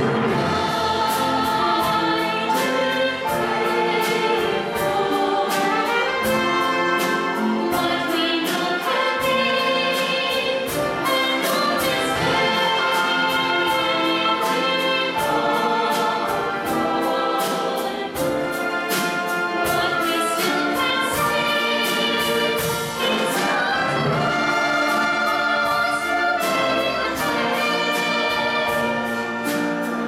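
A mixed choir singing with a full orchestra accompanying, live, over a steady light beat.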